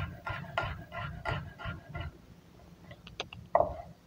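Chef's knife slicing a yellow ají pepper finely on a wooden cutting board: quick, even strokes about three a second, each with a soft knock of the blade on the board. The strokes stop about two seconds in, and a few sharper, louder taps follow near the end.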